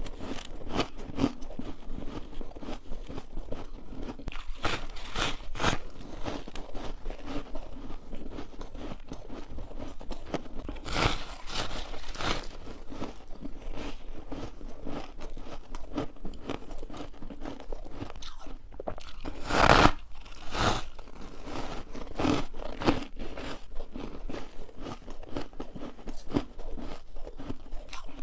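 Close-miked biting and chewing of dry freezer-frost ice: repeated sharp crunches with grinding between bites, the loudest crunch about twenty seconds in.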